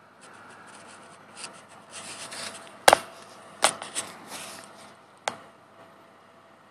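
Handling noise on the recording phone: rubbing and scraping against the microphone with several sharp knocks, the loudest about three seconds in.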